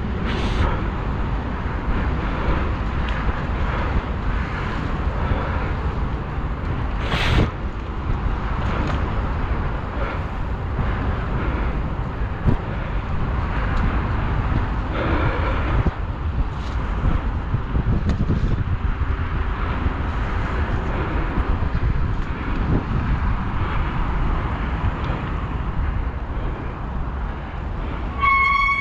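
Wind buffeting the microphone and tyre rumble from a recumbent trike rolling along a paved path, with scattered clicks and one sharp knock about seven seconds in. Near the end a short, high, pitched toot sounds.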